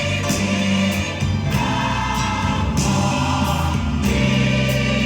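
Gospel music: a choir singing held notes over band accompaniment with a steady bass line.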